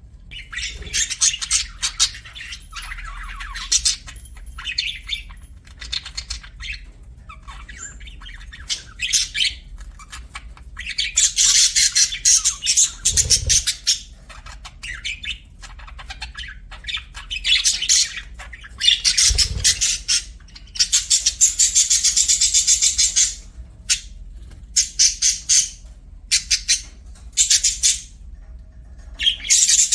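Budgerigars chirping and chattering in irregular high-pitched bursts, with two longer stretches of dense warbling chatter.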